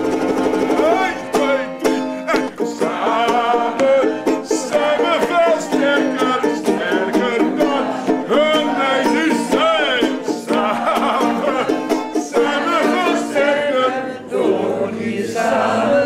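Ukulele strumming chords while a voice sings a song along with it.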